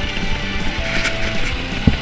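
Background music with changing held notes, and one short thump near the end.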